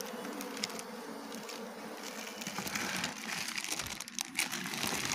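Asian honey bees (Apis cerana) humming steadily in an opened wooden box hive, with plastic sheeting crinkling over the top of the box.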